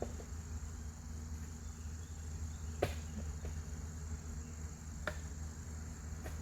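Hand digging with a shovel: several short, sharp strikes into soil, roughly two seconds apart, over a steady low engine hum and a steady high-pitched tone.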